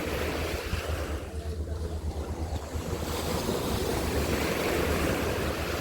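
Sea waves washing onto a beach, surging twice, with wind buffeting the microphone as a low rumble.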